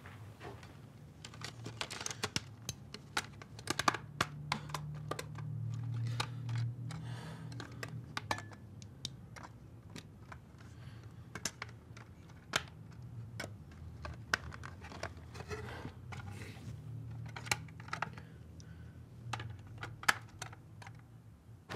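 Irregular small clicks and light plastic rattles of hands handling a portable CD player, with a low hum that comes and goes underneath.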